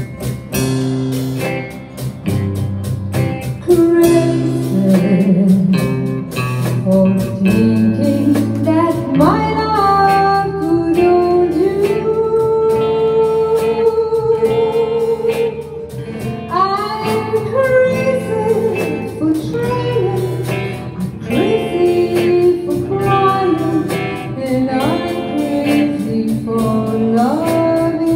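A woman singing with electric guitar accompaniment, with a long held note about halfway through, over a steady picked guitar rhythm.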